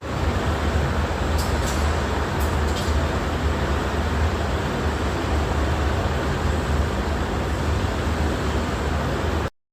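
Foldable portable mini washing machine running: a steady motor hum with a noisy churn over it. It starts abruptly and cuts off suddenly near the end.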